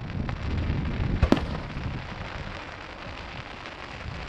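Aerial fireworks bursting: one sharp bang a little over a second in and a fainter one just before it, over a steady low rumble.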